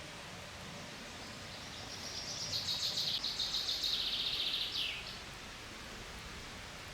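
A songbird singing one rapid trill of quickly repeated high notes lasting about three and a half seconds, swelling in the middle and ending with a short falling note, over faint steady outdoor noise.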